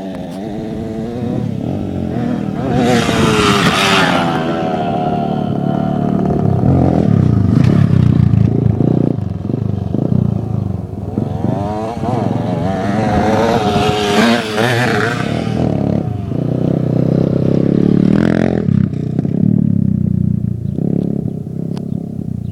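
Dirt bike engines revving up and down, their pitch rising and falling repeatedly. Louder, harsher stretches come about three seconds in and again around fourteen seconds.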